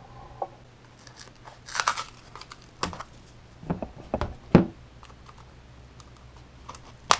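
A heavy cardboard box of plastisol being handled: a rustling scrape about two seconds in, then several dull thumps, the loudest about four and a half seconds in, and a sharp cardboard crack near the end as the perforated spigot-hole panel is pushed in.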